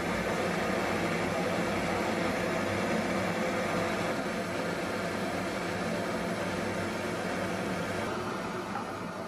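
Propane-oxygen glassworking torch flame running with a steady rushing hiss, easing off a little near the end.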